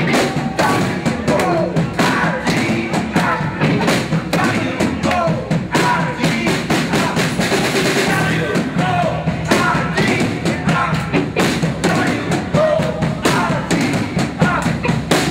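Rock band playing: a drum kit keeps a steady beat under a singing voice.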